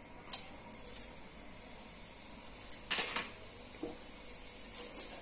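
A few light clicks and taps of a small spoon against a plastic tub and the steel kadhai as cumin seeds are added to hot oil, the sharpest tap about three seconds in, over a faint steady hiss.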